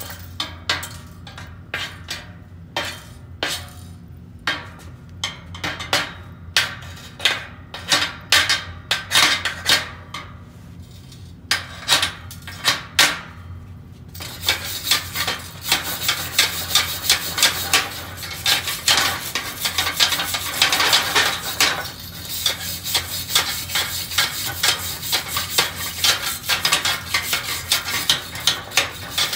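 Chipping hammer striking slag off a fresh 6013 stick-weld bead on steel plate, in irregular sharp metal-on-metal strikes. About halfway through it gives way to a hand wire brush scrubbing the bead in fast continuous strokes.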